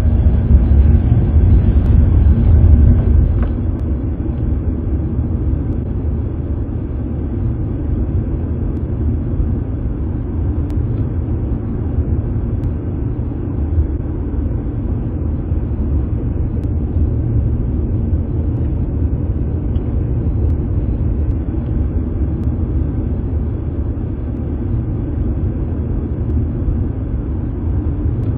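Steady low rumble of a car heard from inside its cabin, louder for the first three seconds or so.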